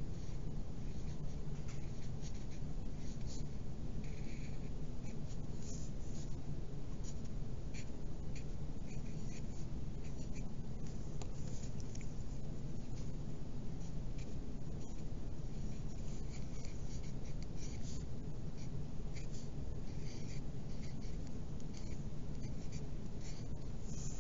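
Wooden pencil writing on paper: a string of short, scratchy strokes over a steady low hum.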